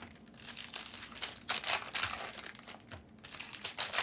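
Foil trading-card pack wrappers crinkling in irregular bursts as packs are opened and the cards handled.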